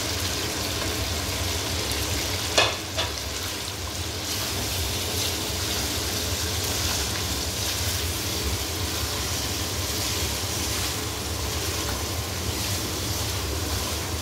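Chicken and spice masala frying in oil in a wok, sizzling steadily while a spatula stirs and scrapes through it. Two sharp knocks come about two and a half seconds in, over a steady low hum.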